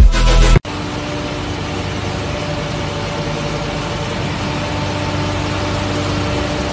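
Steady drone of ship's machinery aboard a fishing trawler, an even noise with a low hum and a few faint steady tones. It comes in abruptly, cutting off about half a second of loud electronic music.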